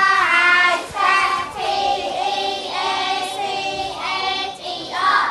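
A group of children singing together in unison, holding long notes in short phrases.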